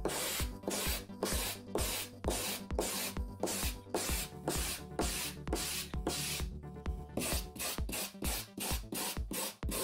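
Hand-held wire brush scrubbed back and forth over extruded polystyrene foam board: a rhythmic scratching of about two strokes a second, quickening near the end. The brushing roughens the foam surface so that plaster will stick to it.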